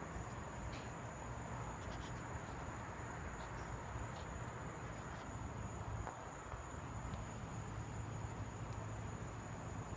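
Night insects calling: a steady high-pitched trill, with short, higher chirps now and then, over a low background hum.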